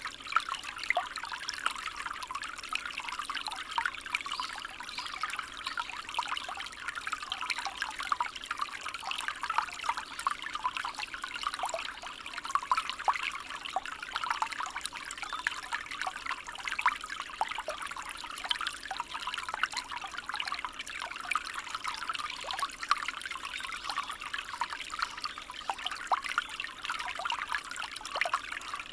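A small stream babbling and trickling over stones, a steady stream of tiny splashes and gurgles.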